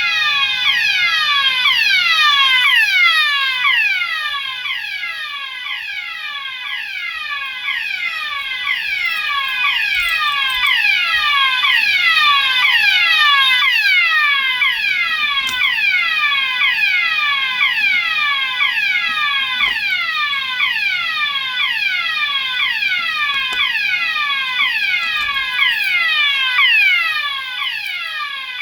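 System Sensor MASS fire alarm sounders and other notification appliances in alarm together, each repeating a quick downward-sweeping tone out of step with the others, over a steady tone. Fire-alarm evacuation signal from a Fire-Lite FireShield panel.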